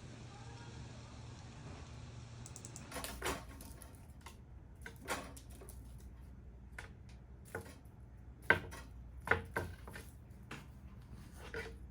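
A series of irregular sharp knocks and clacks from hard objects, about nine, starting around three seconds in and loudest about two-thirds of the way through, over a low steady hum.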